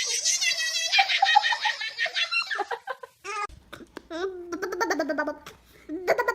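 A baby laughing and squealing in quick, high-pitched bursts, with a short pause about three seconds in, then more laughing in a lower voice.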